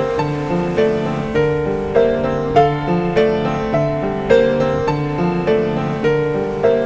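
Background piano music: a steady run of struck notes, a little under two a second.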